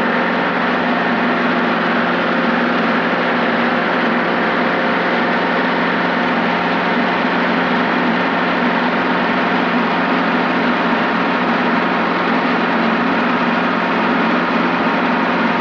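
Helicopter in flight, its engine and rotor making a steady drone that holds the same pitch throughout.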